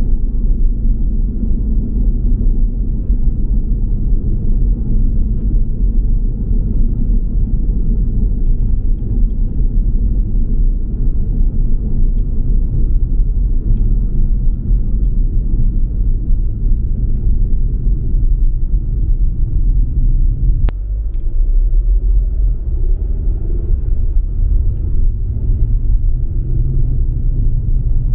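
Steady low rumble of a car being driven, with road and engine noise. A single sharp click comes about 21 seconds in, and the rumble briefly changes character just after it.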